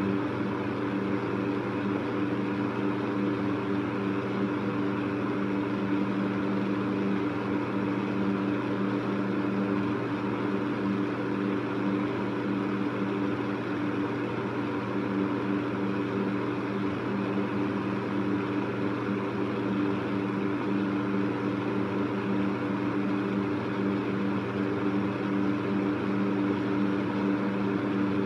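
Electric fan running steadily: a constant hum with a few held tones over an even rushing hiss.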